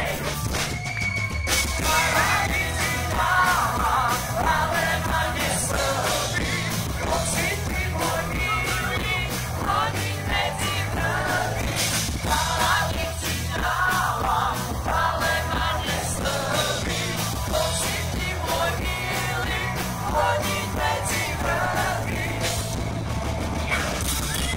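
A live band playing a song through a large stage PA, a singer's voice carrying over a steady bass line and regular drum hits.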